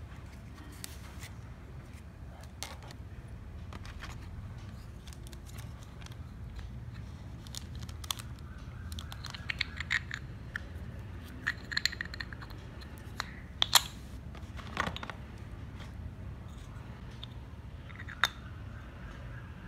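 Small toy kitchen utensils and pots being handled: scattered light clicks and taps, with a cluster of short ringing clinks in the middle and the sharpest click a little after the middle.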